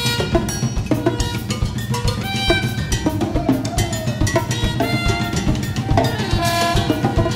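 Instrumental recording by a saxophone, drums and percussion trio: drum kit and hand percussion play a busy, steady rhythm, with short pitched notes over it.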